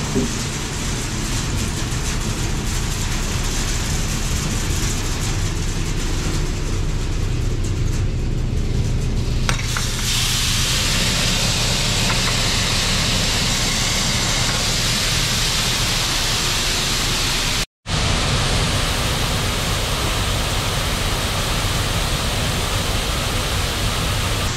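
Grain handling equipment, the bucket-elevator leg and pit conveyor, running steadily while corn moves through it: a continuous rushing, hissing noise over a low mechanical hum. The hiss grows brighter about ten seconds in, and the sound drops out for an instant about two-thirds of the way through.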